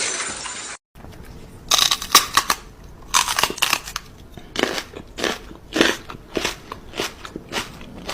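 Repeated crunching, like something brittle being chewed or crushed, roughly two crunches a second, starting about a second in after a noisy sound cuts off.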